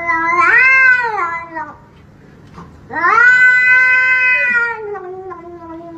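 A cat yowling in two long, drawn-out calls. The first rises in pitch and ends a little under two seconds in; the second starts about a second later, holds, then slowly falls in pitch.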